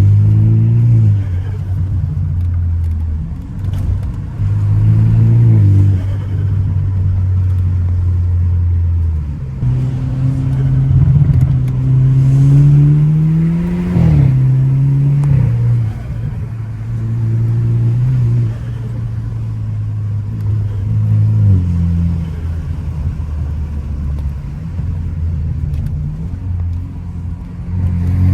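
Car engine under hard driving: its note repeatedly climbs as it accelerates, then drops sharply at gear changes or when it eases off, with stretches of steady, lower running in between.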